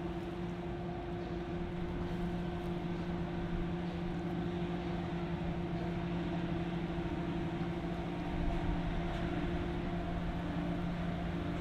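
Tugboat's diesel engine running steadily under load as it pushes against a cargo ship, a constant deep drone with water churning along the hull.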